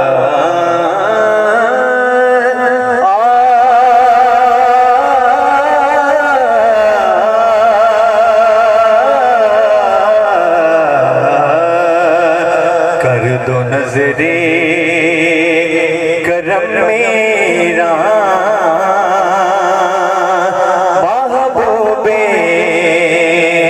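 A man's voice singing a naat in long, drawn-out melodic phrases, the notes held for seconds at a time and wavering in pitch.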